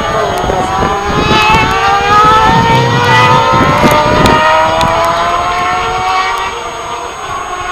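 Superbike engine accelerating, its pitch rising steadily for about five seconds in one long pull, then fading as it moves away.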